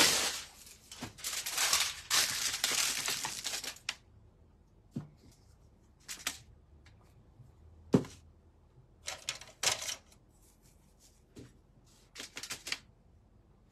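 A sheet of aluminium foil being crinkled and torn for about four seconds, then short scattered rustles as it is handled, with one sharp knock about eight seconds in.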